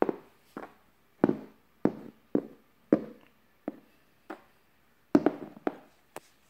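A plastic toy horse tapped along a wooden surface to imitate hoofbeats: a series of hollow knocks, roughly two a second, a little uneven.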